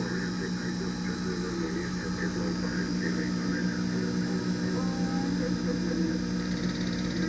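Small lathe's electric motor running at a steady speed, giving an even hum.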